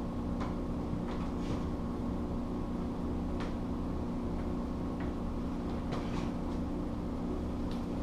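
Steady low hum of a small room, with about eight light knocks and taps scattered through it.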